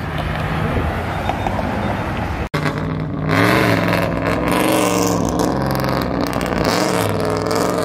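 Car engine running with a steady rumble, then after a sudden break about two and a half seconds in, an engine revving repeatedly, its pitch rising and falling.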